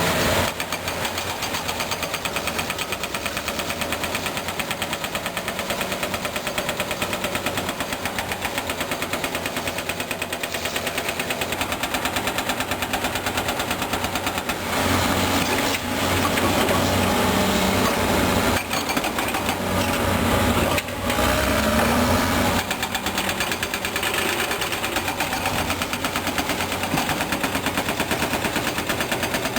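Caterpillar D6R crawler bulldozer running with a fast, even clatter. It gets louder and heavier for a stretch from about halfway through, with brief dips.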